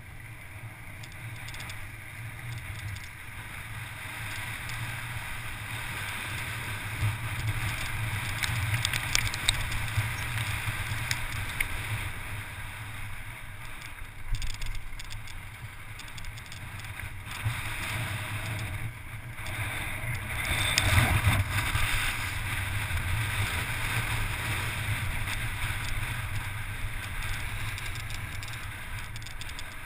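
Wind rushing over a helmet-mounted camera's microphone as a mountain bike descends a loose volcanic gravel track at speed, with scattered clicks and rattles from the bike over the rough surface. The rush grows louder about a quarter of the way in and again about two-thirds in.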